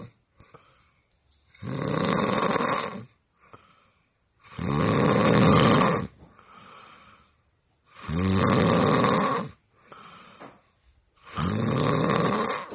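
A person snoring: four long, loud, rasping snores about every three and a half seconds, with softer sounds between them.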